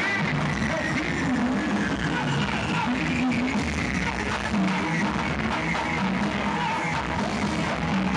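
Pagode baiano band music, with hand drums and electric guitar playing together.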